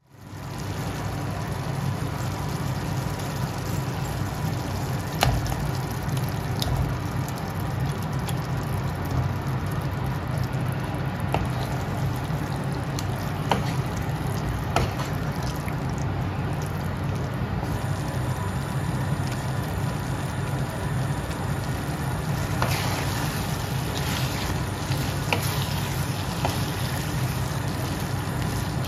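Chicken pieces in masala gravy cooking in a kadai, a steady sizzle and bubble, stirred with a wooden spatula that clicks against the pan a few times.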